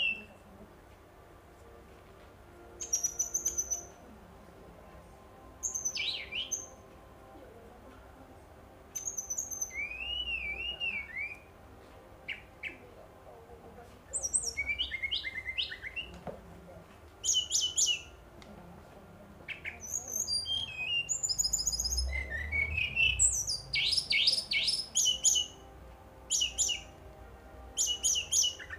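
Caged Brown-chested Jungle Flycatcher singing: short, high phrases of quick whistles and trills with pauses of a few seconds between them, running together into a nearly continuous song in the last third.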